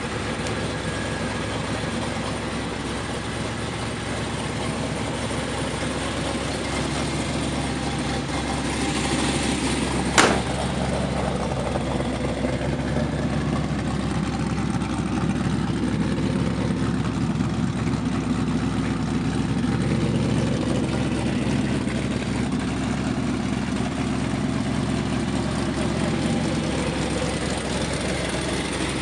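Rebuilt Chevrolet 396 big-block V8 idling steadily. One sharp knock comes about ten seconds in.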